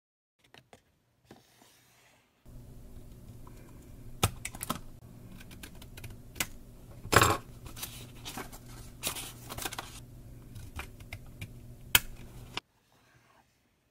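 Small scissors snipping the corners off spiral-notebook paper pages, with paper handling between the cuts: a string of sharp, irregular snips and clicks, the loudest about halfway through.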